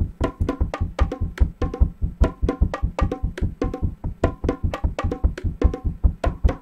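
Drum-machine tom pattern played back as a fast, even run of hits, about four a second, each with a deep thump and a hollow ring, processed through grain-stretch and detuned-chorus effects. It sounds like someone knocking on wood.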